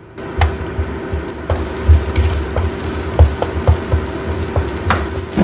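Sliced onions sizzling in oil in a nonstick wok, being sautéed until soft. A wooden spatula stirs them, knocking and scraping against the pan many times.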